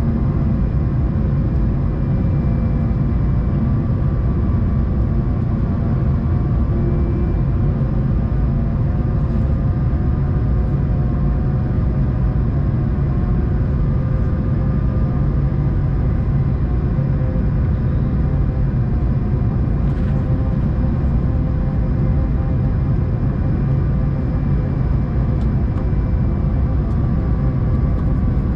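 Steady cabin noise inside an Airbus A220-300 on final approach: a loud, even rumble of airflow and its Pratt & Whitney PW1500G geared turbofan engines, with a few faint steady tones above it.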